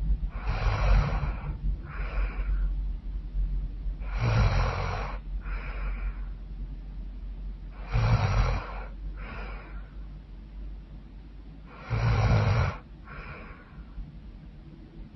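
A woman snoring loudly in her sleep: four heavy snores about four seconds apart, each with a low rattle, and each followed by a softer breath out.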